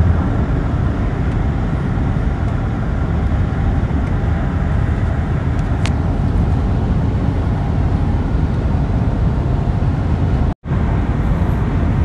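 Steady road noise inside a moving car's cabin at highway speed. The sound cuts out for a moment about ten and a half seconds in.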